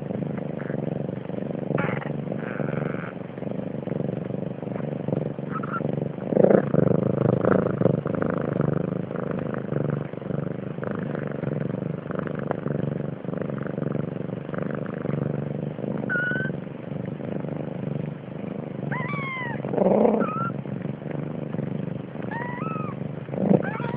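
Short cat meows, a few brief rising-and-falling calls about two-thirds of the way in and again near the end, over a steady low rumble like traffic or a running engine.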